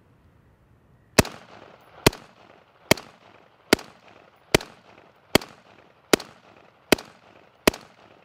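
LMT R20 Rahe 5.56 NATO rifle fired in slow, steady semi-automatic fire: nine shots a little under a second apart, each followed by a short echo.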